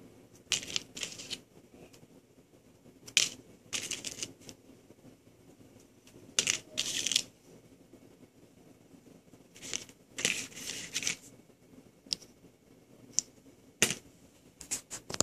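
Small epoxy resin charms being handled: a series of clicks and short scrapes, every second or two, as the hard pieces are picked up, slid and set down on a surface.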